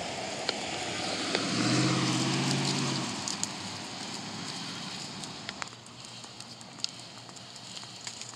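A car passing on the street: its tyre noise and low engine hum rise to their loudest about two seconds in, then fade away. Scattered small clicks sound throughout.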